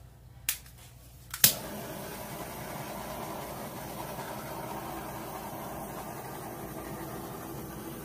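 Handheld butane torch clicked to light, a small click then a louder one about a second and a half in, then its flame hissing steadily as it is passed over wet acrylic pouring paint.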